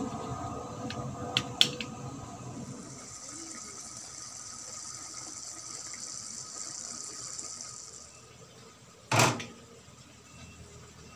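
Ground pork and bitter melon simmering in sauce in an aluminium wok, bubbling, with a few sharp clinks of the glass lid being lifted off in the first two seconds. A high hiss runs through the middle, and a single sharp knock sounds near the end.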